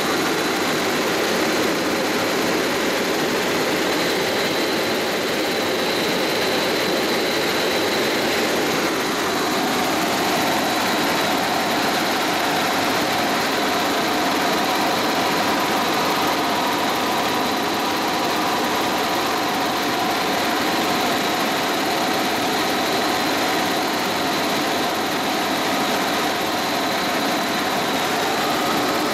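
Helicopter in flight heard from inside the cabin: a steady engine and rotor drone with a constant high whine. A few steady mid-pitched tones join about nine seconds in.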